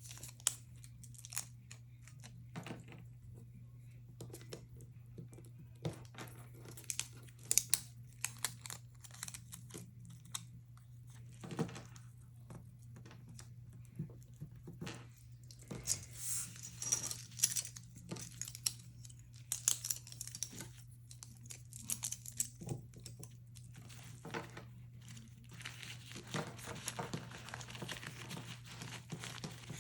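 Paper and plastic crinkling and rustling with scattered light taps and clicks as a napkin, utensils and glue-dot packaging are handled, over a steady low hum.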